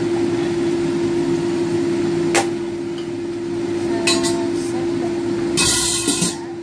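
Kitchen handling sounds over a steady fan-like hum. A sharp snip or click of kitchen scissors comes about two and a half seconds in, then light clinks as the scissors are laid on a plastic bowl of tofu puffs. Near the end there is a short loud hissing, scraping burst at the wok.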